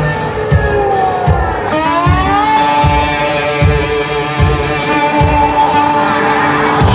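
Live band playing an instrumental passage: guitar playing held and bending, sliding notes over a steady drum beat, with no singing.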